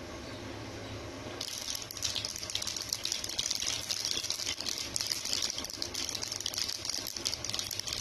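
Mustard seeds and urad dal sizzling in hot oil, breaking into a dense crackle of tiny pops about a second and a half in as the seeds start to splutter: the tempering stage of the cooking.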